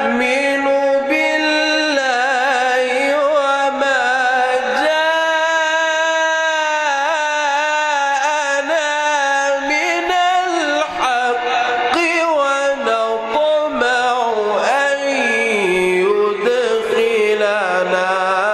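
A man reciting the Quran in a melodic, chanted style. His single voice holds long, ornamented notes that bend up and down.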